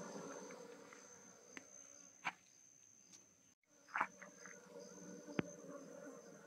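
Faint hum of a honeybee colony clustered inside a hollow log hive, fading over the first couple of seconds, over a thin steady high tone. A few sharp knocks and taps of handling stand out, the loudest about four seconds in.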